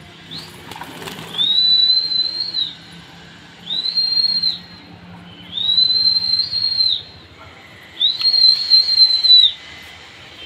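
A person whistling four long, high, shrill whistles to drive pigeons up into flight. Each whistle is held about a second, sliding up at the start and dropping off at the end.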